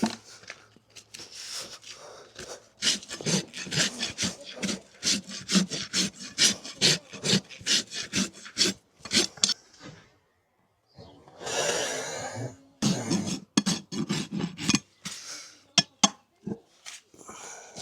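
Farrier's rasp filing a draught horse's hoof: quick back-and-forth scraping strokes, about three a second, with a short pause about ten seconds in before the rasping resumes.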